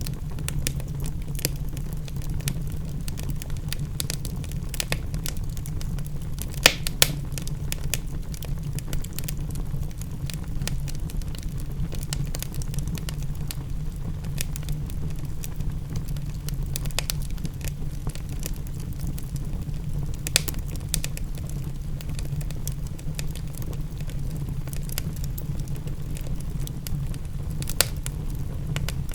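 Wood fire crackling with irregular sharp pops, a couple of louder pops about seven seconds in, over a steady low rumble.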